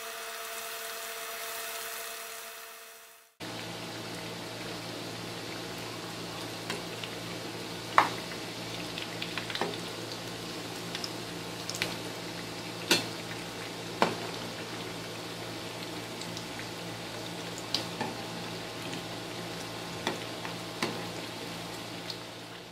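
Breadcrumb-coated bread pockets frying in hot oil in a pan: a steady sizzle, cut off briefly about three seconds in. Scattered sharp taps of a metal slotted spoon against the pan punctuate it as the pieces are turned, the loudest about eight and thirteen seconds in.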